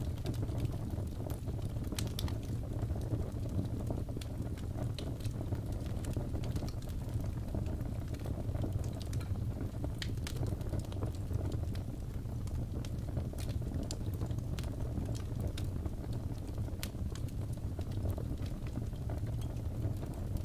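Fireplace ambience: a wood fire burning with a steady low rumble and scattered sharp crackles and pops.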